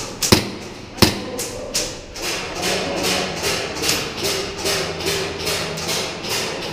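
Two sharp knocks, then a steady run of footsteps at about three a second, as a person moves at a brisk pace.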